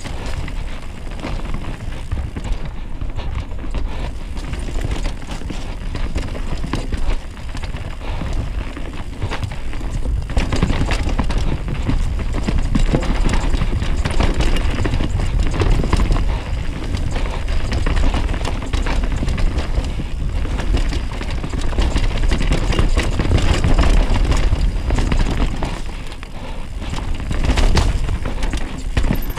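Mountain bike descending a rough dirt downhill trail, heard from a camera mounted on the bike or rider: a steady low rumble of wind buffeting the microphone and tyres on dirt, with continual rattles and knocks from the bike over the rough ground. It gets a little louder about ten seconds in.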